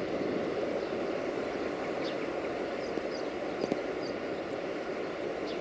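A steady low outdoor rumble with no clear pitch, with a few faint, short high bird chirps: one about two seconds in, a cluster around three to four seconds, and one near the end.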